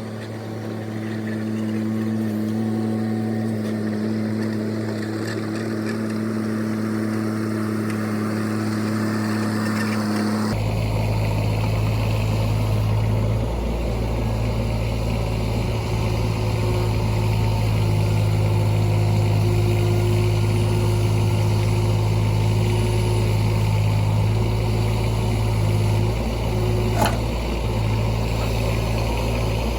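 Bobcat E20 mini excavator's diesel engine running steadily. Its note changes abruptly about a third of the way in, and a short sharp click is heard near the end.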